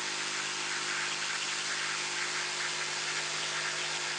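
Bosch GST jigsaw running steadily with a bimetal blade cutting through material: an even cutting hiss over a steady motor hum.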